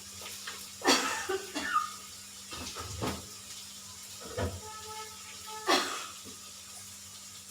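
Onions and ginger frying in oil in a kadhai, with a steady sizzle, and about five scrapes and knocks of a spatula against the pan, some of them ringing briefly.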